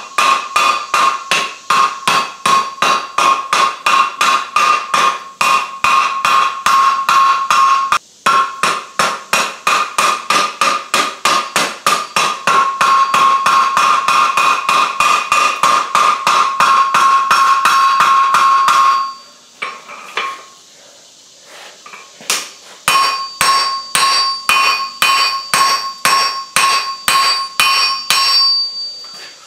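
Hand-hammer blows on red-hot steel over a JHM anvil's horn, about three strikes a second, each with a clear metallic ring, as the bottle-opener blank is flattened. The blows stop for about three seconds about two-thirds of the way through, then resume.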